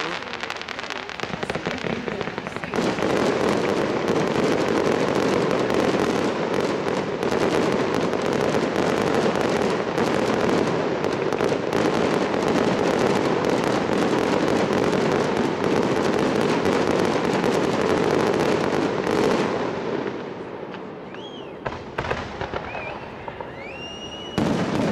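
Fireworks going off: a long, loud stretch of dense crackling from about three seconds in, dying down after about twenty seconds into a quieter spell with a few thin whistles, then one sharp bang just before the end.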